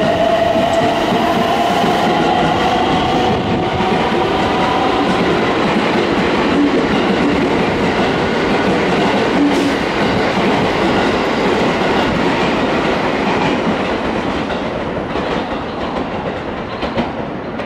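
289 series limited express electric train (Kounotori) pulling out of the station and passing close by. Its motor whine rises slightly in pitch over the first few seconds, then gives way to the steady rumble and clatter of wheels on the rails as the cars go by. The sound fades as the train draws away near the end.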